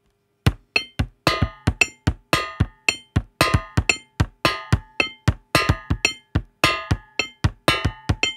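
Rhythmic percussion: a steady pattern of sharp struck hits, about three a second, each with a short ringing tone. It begins about half a second in and leads into a music track.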